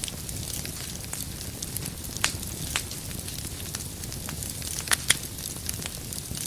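Wood fire crackling in a fireplace: a steady low rumble of flame under frequent sharp pops and snaps. A couple of louder pops come about two seconds in, and a close pair about three-quarters of the way through.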